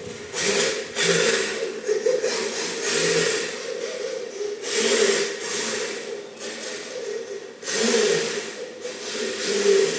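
Small electric RC drift car running, its motor whining steadily while the tyres hiss as they slide, swelling in repeated surges every two to three seconds.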